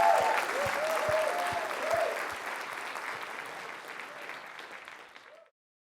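Audience applauding, with a few whooping cheers in the first couple of seconds; the clapping fades and then cuts off abruptly near the end.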